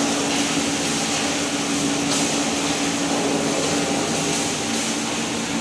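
Fly ash brick-making plant running: belt conveyor and electric motors, a steady low hum under a constant rushing noise.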